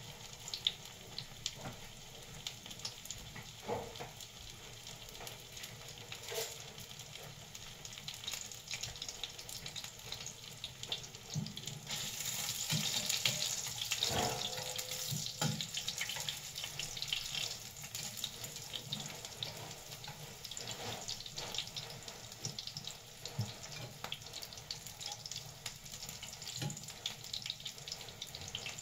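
Food sizzling as it fries in a pan on a gas stove, a steady hiss that grows louder from about twelve to eighteen seconds in while the pieces are turned with metal tongs, with scattered light clicks of the tongs against the pan.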